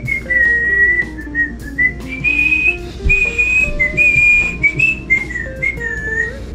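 A man whistling a tune, a single clear melody sliding between notes, over background music with lower plucked notes.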